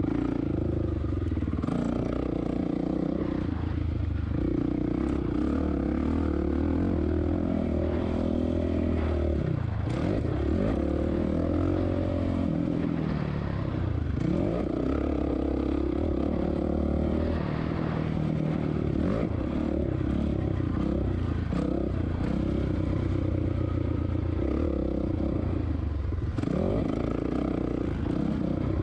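2007 Suzuki RM-Z450 four-stroke single-cylinder motocross engine being raced, its revs rising and falling over and over as the throttle is opened and chopped, with knocks and rattles from the bike over the rough dirt.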